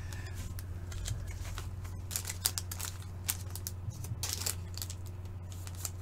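Hockey trading cards being handled and sorted by hand: irregular light clicks and brief slides of card stock, over a steady low hum.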